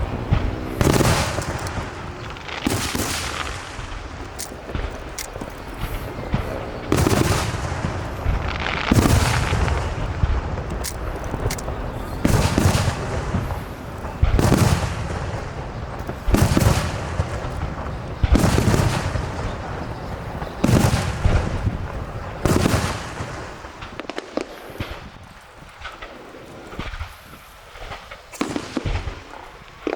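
Aerial firework shells bursting one after another, about one every two seconds, each boom trailing off as it fades. The bursts thin out to smaller, scattered pops in the last few seconds.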